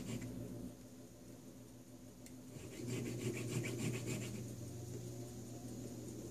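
A needle file is drawn by hand back and forth across a small clock mainspring arbor held in a bench vise: a faint scratchy rasping of metal. The strokes come quickest and loudest from about three to four seconds in.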